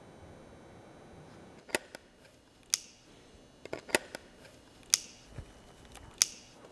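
A Leica Summilux-M 50 mm lens being handled and fitted to a Leica M9-P camera body: a series of five sharp metallic clicks, roughly a second apart, with a few softer ticks between them.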